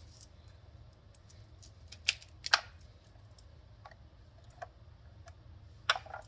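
Scattered clicks and knocks from working a Chop Wizard press-down vegetable chopper on cauliflower florets, with the two loudest about two seconds in and another near the end.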